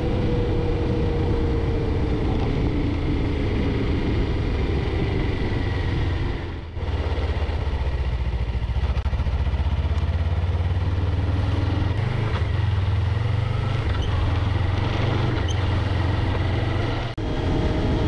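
Steady road noise from a moving vehicle: a low engine drone with tyre and wind noise, dipping briefly twice.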